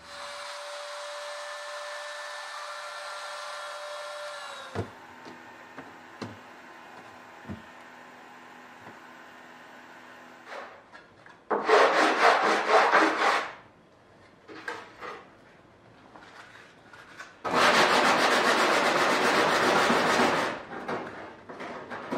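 The edge of an inspection cover is dressed by hand on a workbench: two spells of rapid rasping, rubbing strokes, a couple of seconds each, which are the loudest sounds. Before them a small motor hums steadily, then winds down and stops about five seconds in, followed by a few light knocks.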